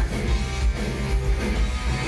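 Heavy metal band playing live, electric guitars to the fore over bass and drums, loud and continuous.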